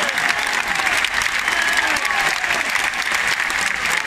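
Large crowd in a bullring applauding steadily, with voices calling out over the clapping.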